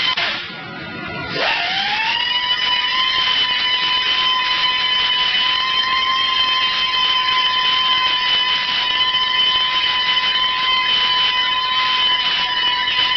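Paint spray gun spraying: a steady high whistle over a hiss of air. The whistle rises in pitch as it starts about a second and a half in and cuts off suddenly at the end.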